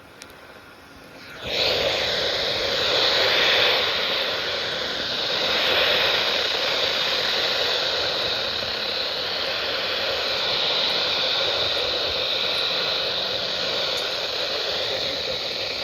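Steady rushing noise of a heavy thunderstorm downpour with wind, starting abruptly about a second and a half in.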